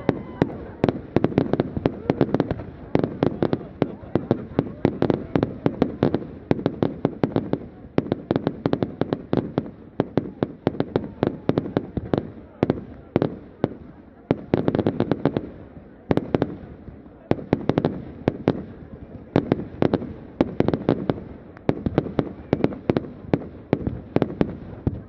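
Aerial fireworks going off in quick succession, several sharp bangs and crackles a second, with a few brief lulls.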